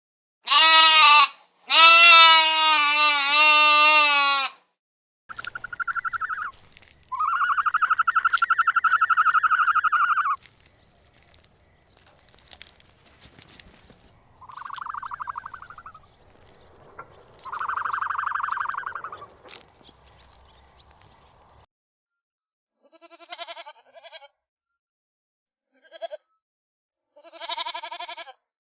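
A series of bleats, several separate wavering cries a few seconds apart. The loudest come in the first few seconds; the later ones are higher and thinner, and the last few are short.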